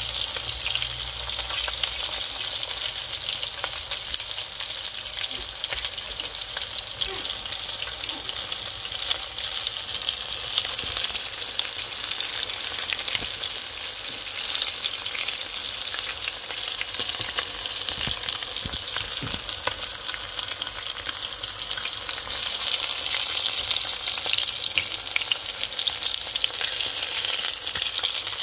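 Chicken leg quarters frying in hot oil in a pan: a steady sizzle thick with fine crackling spatters.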